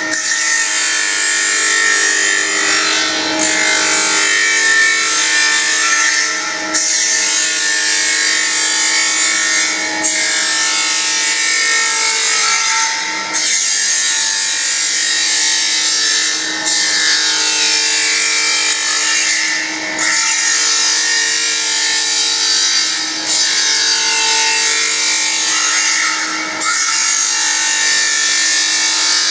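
SGA-2550AH surface grinder's abrasive wheel grinding a steel workpiece under automatic table traverse, a steady hiss over the motor's hum. The hiss dips briefly about every three and a third seconds, each time the table reverses and the wheel runs off the end of the workpiece.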